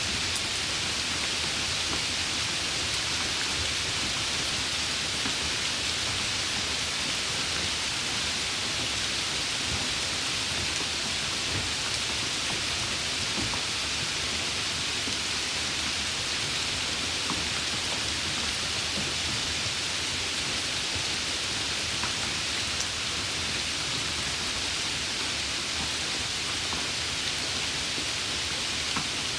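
Steady rain falling, an even hiss with faint scattered drop ticks and a soft low rumble underneath.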